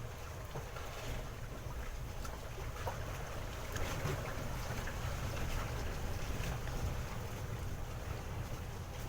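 Wind buffeting the microphone aboard a small boat at sea, a steady low rumble with faint water sounds and a few light knocks.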